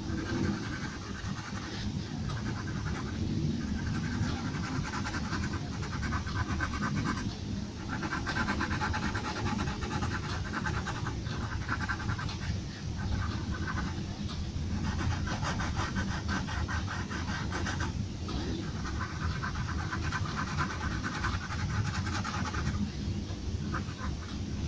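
Pencil shading on paper: runs of quick back-and-forth scratching strokes lasting a few seconds each, with short pauses between them, over a steady low room rumble.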